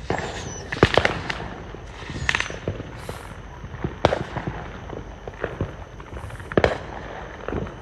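Fireworks going off: a string of sharp bangs and crackling pops, the loudest about a second in and again near the end, with short hisses in between.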